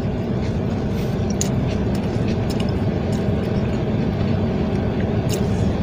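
Parked car's engine idling, a steady low hum heard inside the cabin, with a few faint clicks from chewing.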